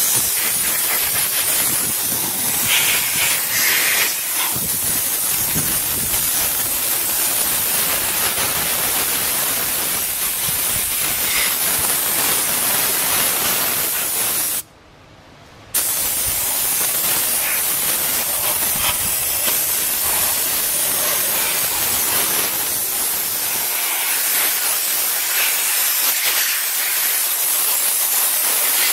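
Compressed air hissing loudly and steadily as it is blown through a window air conditioner's vents and coils to clear out dust and hair. It breaks off for about a second midway, then resumes.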